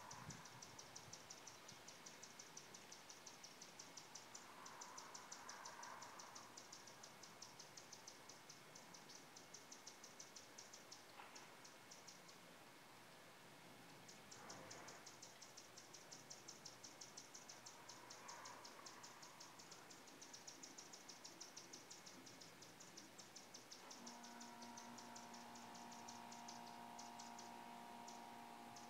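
Faint, rapid high-pitched ticking in an even run, like an insect calling, that stops for about two seconds near the middle. A faint steady hum of several tones joins near the end.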